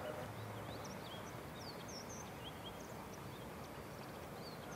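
Birds chirping: many short, high chirps and whistles, some rising and some falling, over a steady background hiss.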